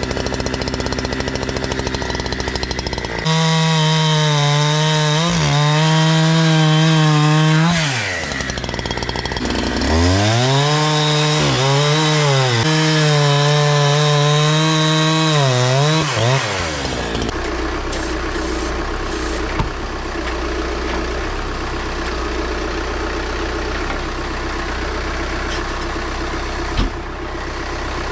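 Gas chainsaw idling, then revving to full throttle about three seconds in and cutting through firewood, its pitch sagging as the chain loads in the wood. It drops back briefly, revs and cuts again, then settles back to idle a little past halfway.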